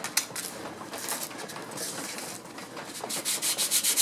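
Steel plane blade being honed on 600-grit sandpaper: a few rustles and light clicks as it is set down, then quick back-and-forth rubbing strokes starting about three seconds in, about five a second, putting a micro bevel on the edge.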